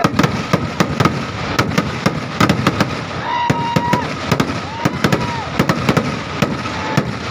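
Vedikkettu fireworks display: a fast, irregular barrage of sharp bangs and cracks, several a second, with two short whistle-like tones about halfway through.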